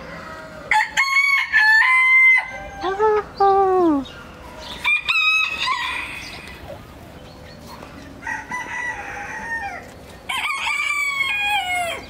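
Roosters crowing, about four crows a few seconds apart, several ending in a drawn-out falling note.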